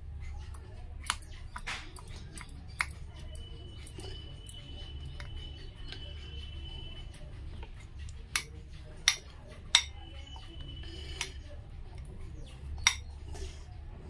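Metal spoon stirring mashed potato in a glass bowl, clinking sharply against the glass several times, the loudest clinks about nine and ten seconds in.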